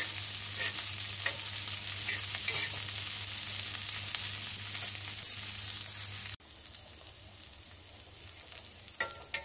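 Sliced onions and green chillies sizzling in oil on a flat tawa while a steel spoon stirs and scrapes them across the pan. Just after six seconds the sizzle drops abruptly to a quieter level.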